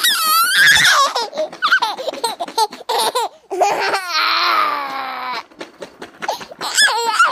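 A young child laughing and squealing in bursts, with one longer high squeal about four seconds in.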